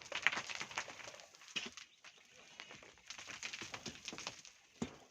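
Hand tools scraping and knocking in volcanic sand and stone, in irregular scrapes and sharp clinks.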